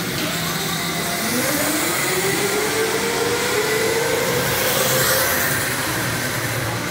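Go-karts running on a track, one accelerating with its engine pitch rising steadily over about four seconds, then levelling off.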